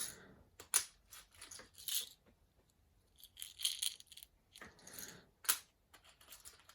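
Scattered light clicks, taps and short rustles from handling boxes of small metal watch crowns, a few sharper clicks standing out.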